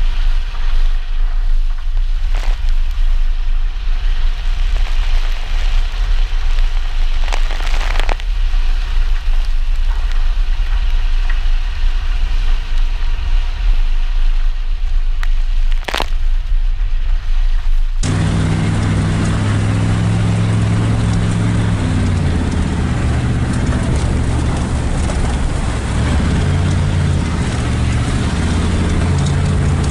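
Pickup truck driving on a muddy dirt road in the rain: a low rumble with a few sharp knocks, then, after a cut, the engine running louder, its pitch stepping up and down with the throttle over a steady hiss.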